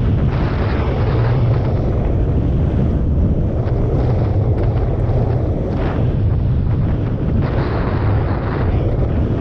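Wind buffeting the microphone of an action camera worn by a downhill skier, a steady low rumble, with the hiss of skis sliding over packed snow rising and falling through the turns.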